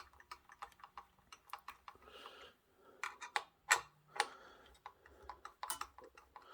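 Irregular light clicks and taps of small metal parts as a screwdriver works the CPU cooler's mounting screws and hardware, with a few sharper knocks about three to four seconds in.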